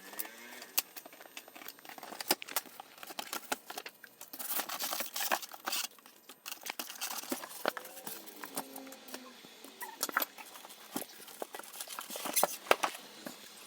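Cardboard box and packaging being opened and handled: irregular rustling, scraping and scratchy clicks, with louder bursts of rustling partway through and near the end.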